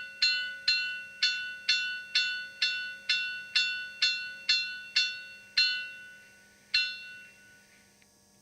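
Bell-like ringing from the sound decoder of an Arnold BR 41 model steam locomotive: about two clear, ringing strikes a second, each dying away, slowing and stopping near the end, over a faint steady hum.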